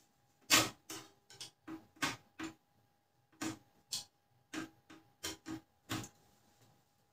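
Irregular sharp clicks and knocks, about a dozen, from Canon LBP 2900 laser printer parts being handled during repair work; the loudest comes about half a second in and they stop about six seconds in.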